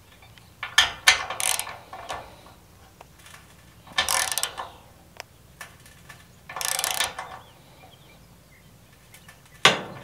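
Ratcheting wrench clicking in three short bursts of back-strokes as a bolt on a steel sawmill track is tightened, with one sharp click near the end.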